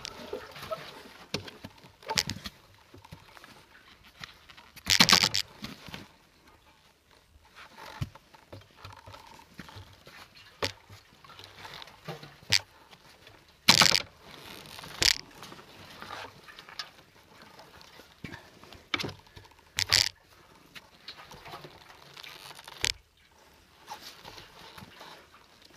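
Irregular knocks, scrapes and crunches as a motorcycle moves slowly over a rutted dirt trail: bumps jolting the bike and handlebars and brush rubbing against it, with about five louder jolts. No steady engine note stands out.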